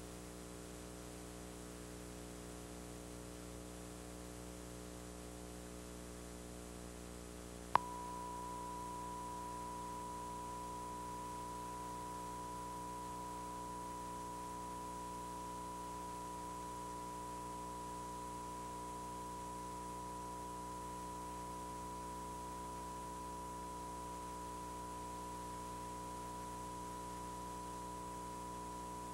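Broadcast dead air: a faint low hum, then a sharp click about eight seconds in, after which a steady single-pitch test tone sounds without change.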